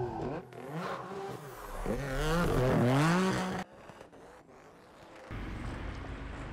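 Race car engine revving hard, its pitch repeatedly climbing and dropping with throttle and gear changes, loudest just before a sudden cut about three and a half seconds in. Afterwards a lower, steadier engine and tyre rumble builds near the end.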